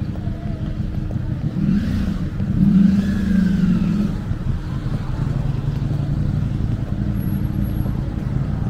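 Steady city street traffic rumble, with a vehicle passing louder from about two to four seconds in.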